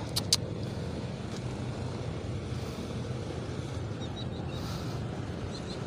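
A steady low engine hum, with two sharp clicks just after the start.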